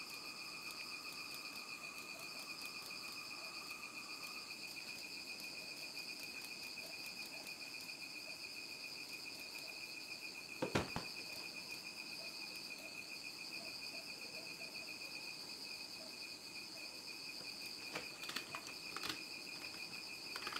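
Insects trilling steadily in the background, a continuous high pulsing note. One sharp knock about eleven seconds in, and a few light clicks near the end.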